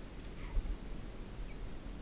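Low, uneven rumble of wind on the microphone, with a soft knock about half a second in.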